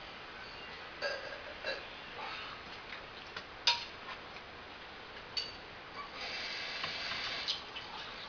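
Kitchenware and a cup being handled off camera: scattered knocks and clicks, the sharpest about three and a half seconds in, then a second or so of hissing noise near the end, closed by another knock.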